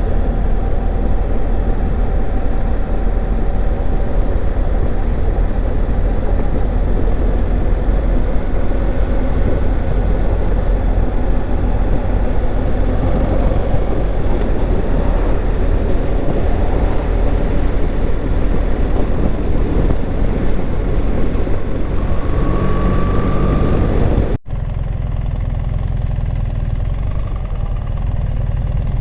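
A vehicle driving on a road: steady engine and road rumble. It breaks off for an instant about 24 seconds in, then goes on a little softer.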